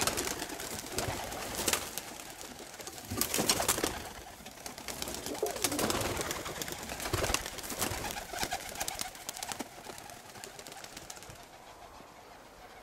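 Young roller pigeons leaving their kit box: bursts of wing-flapping and fluttering, loudest in two spells about three and six seconds in, with some cooing, dying away near the end.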